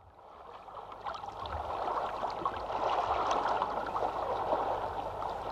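Running water like a babbling stream, a steady rushing with many small splashy crackles, fading in over the first couple of seconds and then holding steady.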